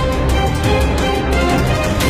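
Loud background music: a dramatic theme with a steady beat and sustained notes.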